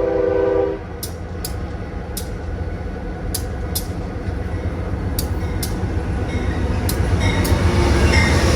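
A train horn sounding a chord that cuts off about a second in, then the low rumble of a train passing, growing louder, with sharp clicks in pairs from its wheels and a faint wheel squeal near the end.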